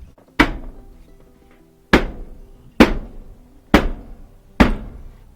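Five sharp metallic knocks, each with a short ring, as parts of a Samsung electric dryer's sheet-metal cabinet are knocked and locked down into place.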